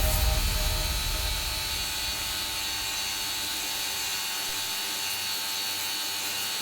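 Steady machine noise: an even hiss with a thin high whine, and a low rumble that fades in the first two seconds.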